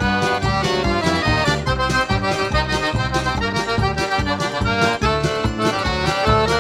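Instrumental intro of a forró song: an accordion plays the melody over a bass line and a steady percussion beat.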